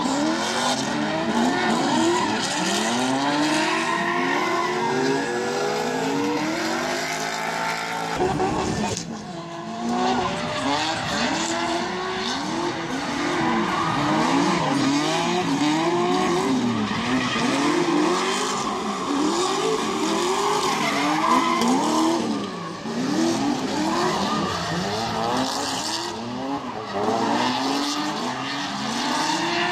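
Drift cars on track: engines revving up and down in quick, repeated swings over a steady screech of sliding tyres. The sound dips briefly about nine seconds in.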